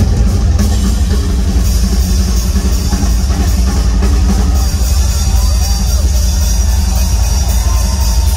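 Live rock drum solo on a double-bass-drum kit: fast, continuous drumming with heavy bass drums under cymbals. It plays loud throughout, and the cymbals grow brighter about two seconds in.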